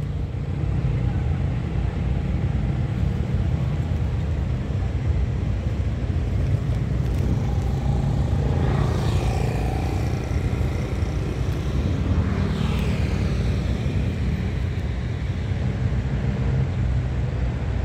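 Road traffic crossing the bridge: a steady low rumble throughout, with two vehicles passing by about nine and twelve seconds in, each falling in pitch as it goes past.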